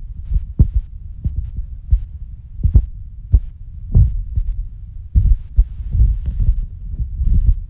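Irregular muffled low thumps over a steady low rumble, several a second: handling noise from the recording phone being moved and bumped.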